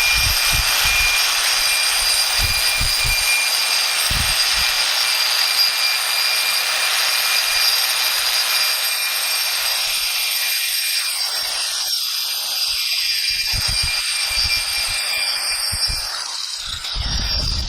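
A power tool running steadily, a high motor whine over a harsh cutting hiss, with a few dull knocks underneath; it eases off about sixteen seconds in.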